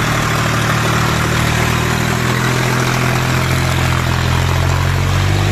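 Massey Ferguson 8055 tractor's diesel engine running steadily under load, pulling heavily loaded brick trailers close by.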